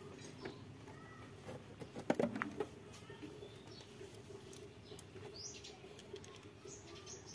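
Faint bird chirps now and then, over a steady low hum, with a short cluster of clicks and taps about two seconds in.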